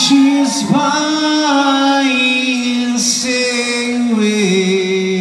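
Male rock singer singing live through the stage sound system, holding long notes that step down in pitch over the few seconds.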